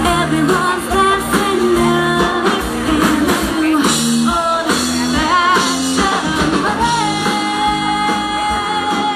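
Live pop-rock band with a female vocalist singing into a handheld microphone, amplified through a PA, over guitar and drums. A long note is held from about seven seconds in.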